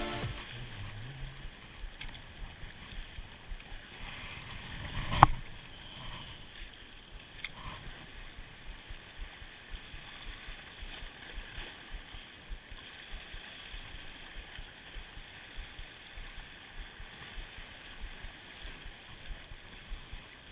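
Sea waves washing against the rocks with wind on the microphone. A single sharp click about five seconds in stands out above it, with fainter clicks near two and seven seconds.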